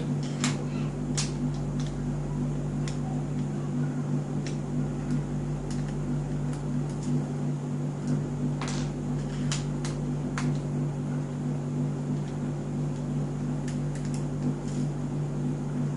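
Steady low mechanical hum with scattered light clicks and ticks as a screwdriver turns small screws out of an alarm padlock's shackle.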